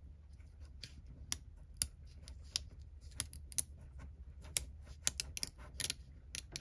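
A rub-on transfer sheet being handled and lifted off an acetate slide to check the transfer: light, irregular clicks and crackles of plastic and paper, a few to several a second.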